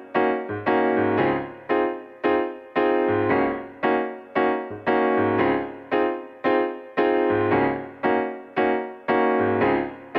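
Electronic keyboard playing a piano sound with no voice: chords struck in a steady pulse, roughly two a second, each one fading before the next, over changing bass notes.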